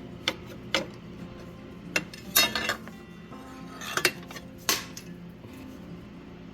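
Small metal parts of a benchtop planer clinking and rattling as they are handled during disassembly: a handful of sharp separate clinks and a short jangling rattle about two and a half seconds in.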